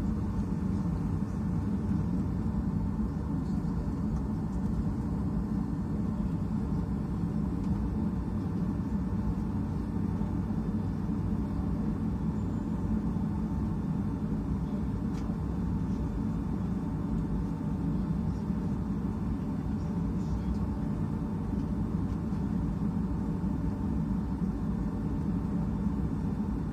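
Steady low rumble of cabin noise inside a Boeing 757-232 airliner: engines and airflow heard through the fuselage, even in level, with a faint steady hum above it.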